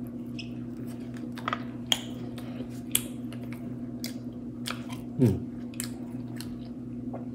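A person chewing crisp fried dried pangasius fish, with irregular crunches and mouth clicks over a steady low hum. A short falling voiced "mm" comes about five seconds in.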